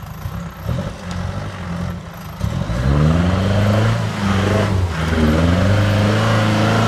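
UAZ off-roader's engine revving hard under load as it climbs a muddy forest track. Revs rise about two and a half seconds in, hold high, dip briefly near the middle and climb again.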